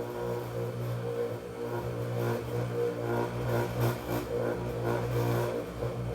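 Bench buffing machine running with a steady motor hum, a polishing wheel rubbing against silver rings coated with buffing compound.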